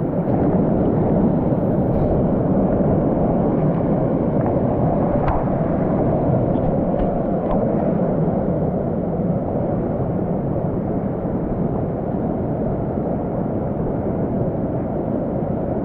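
Mountain stream water rushing through a canyon: a steady, dense, even noise.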